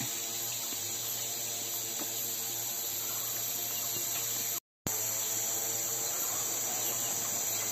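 Steady, high-pitched chorus of forest insects over a faint, steady low hum. The sound drops out completely for a moment a little past halfway, then carries on unchanged.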